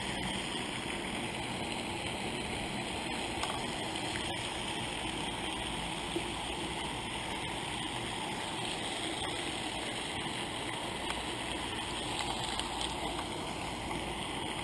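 Steady rushing hiss of water from a pond fountain spraying, with a few faint clicks.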